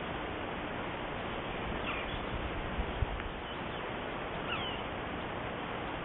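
Trail camera's own recording of a meadow: a steady dull hiss with a few faint birds calling, short falling chirps about two seconds in and again near four and a half seconds, and a soft thump about three seconds in.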